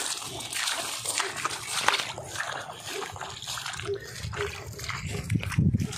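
Footsteps squelching and splashing through wet mud and stubble in a flooded, harvested paddy field, uneven and irregular, with a low rumble growing near the end.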